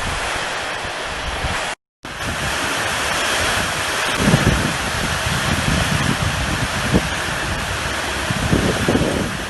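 Heavy rain and running rainwater making a loud, steady rush, with wind thumping on the microphone now and then. The sound cuts out for a moment just under two seconds in.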